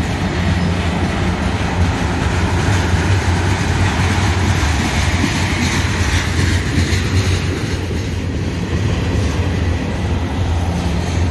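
A train rolling past: the steady low rumble of rail cars on the track, with some clattering of wheels over the rails.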